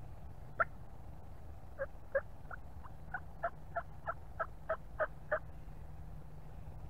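Turkey yelping: one lone yelp, then a run of about a dozen short two-note yelps at roughly three a second that grow louder toward the end.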